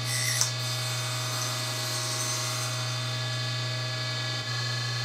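Table saw running steadily at full speed, with a brief cutting sound just after the start as the blade takes a short cut across the end of a piece of wood.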